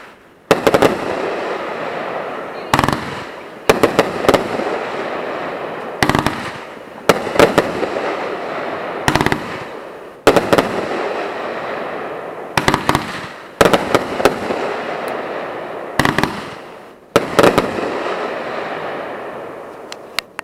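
Fireworks bursting in a steady string of loud bangs, about one every one to two seconds, each followed by a fading crackling hiss.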